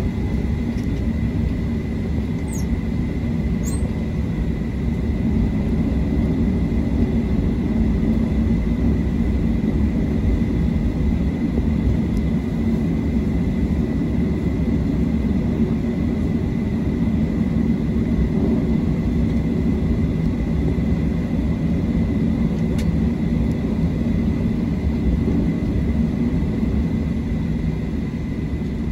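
Cabin noise of a Boeing 737-700 taxiing: its CFM56-7B engines running at taxi power, a steady rumble heard from a seat over the wing, with a faint steady whine above it.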